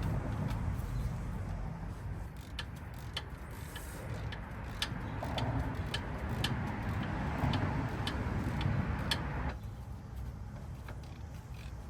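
Hand ratchet clicking in separate, irregular ticks while the new wheel hub's mounting bolts are run down, over a low steady rumble.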